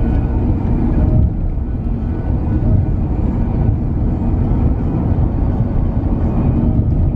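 Steady low rumble of a car driving at speed: road and wind noise heard from inside the cabin.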